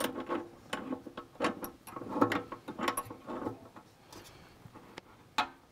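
Hex key turning the bolt of a hard pannier's mount, tightening the pannier down onto its rack: an irregular run of small metal clicks and scrapes for about three and a half seconds, then quieter, with one sharp click near the end.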